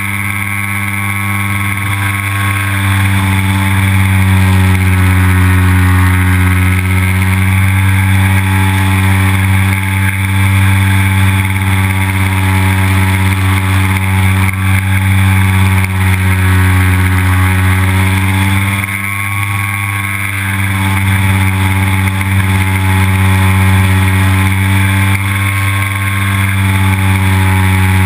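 Engine and propeller of an MX2 model aerobatic airplane, heard from a camera mounted on board. It runs steadily with a strong low drone and eases off briefly about two-thirds of the way through.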